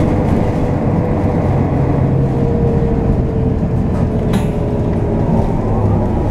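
City bus driving, heard from inside the passenger cabin: a steady engine drone and road rumble, with a brief hiss about four seconds in.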